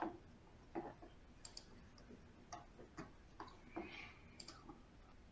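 Faint, irregular clicking on a computer keyboard: a dozen or so light taps at uneven intervals.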